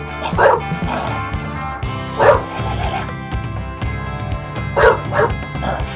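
A bulldog barking in several short woofs, spaced irregularly, over background music.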